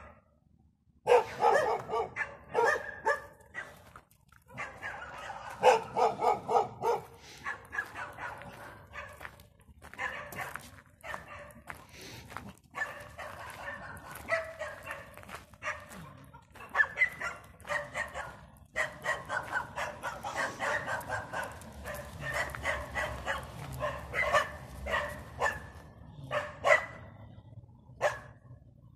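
A pack of dogs barking over and over, several barks overlapping, with short lulls about a second in and again near four seconds.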